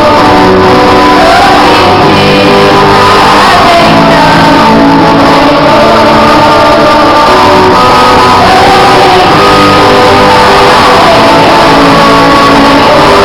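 Live worship music: a group of voices singing together over guitar accompaniment, played continuously and very loud.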